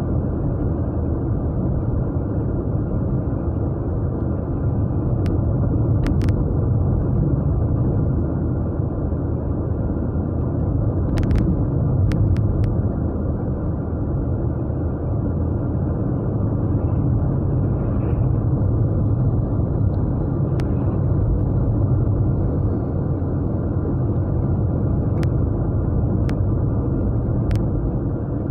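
Japanese V6 car engine and tyre noise heard from inside the cabin while cruising, a steady low drone with a few faint ticks scattered through it.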